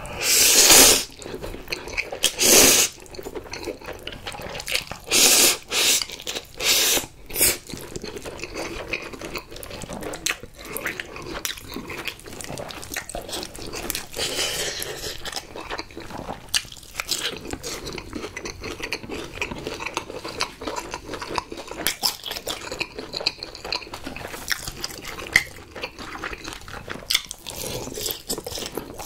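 Close-miked slurping of spicy stir-fried instant noodles: about six loud slurps in the first eight seconds, then steady chewing with small mouth clicks.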